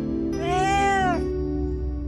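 A freshly neutered ginger-and-white street tomcat meowing once from inside a pet carrier: one drawn-out meow that rises and then falls in pitch, near the start. Soft background music runs underneath.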